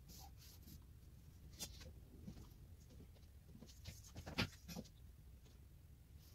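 Faint scratching of a marker drawn along a plastic ruler across a painted plaster wall, marking out a square cut line, with a few light clicks; the sharpest comes about four and a half seconds in.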